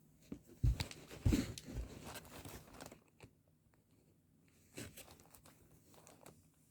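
Handling noise of packaging: two soft thumps about a second in amid crinkling and rustling, then a brief rustle near the five-second mark.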